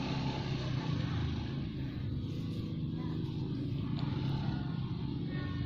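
An engine running steadily at an even pitch, with faint voices in the background.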